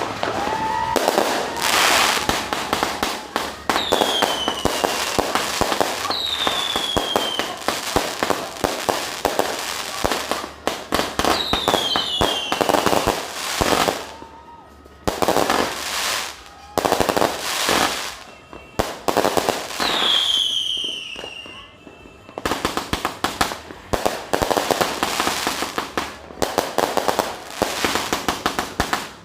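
Fireworks going off in rapid volleys of crackling bangs, with several short whistles that fall in pitch, and a few brief lulls between barrages.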